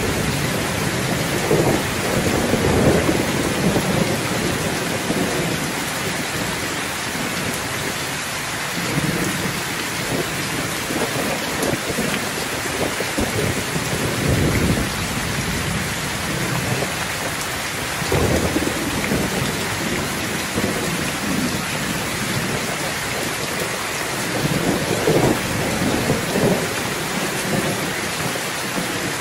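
Heavy rain pouring steadily, with low rolls of thunder swelling up and dying away five times.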